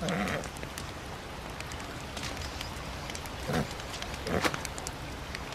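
Soft outdoor ambience with a campfire crackling lightly in scattered small pops. Three short low murmurs or grunts from people are heard: one at the very start and two more past the middle.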